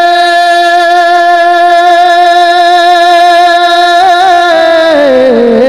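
A male naat reciter holds one long sung note, unaccompanied, through a microphone and PA system; the pitch stays steady, then slides down near the end.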